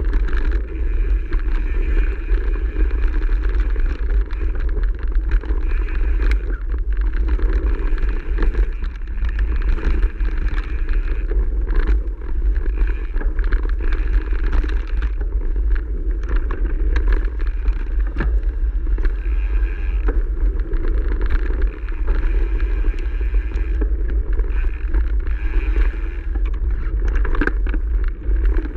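Mountain bike riding fast down a forest trail: continuous wind buffeting on the microphone and tyre noise over the dirt and gravel path, with frequent small clicks and rattles from the bike over rough ground.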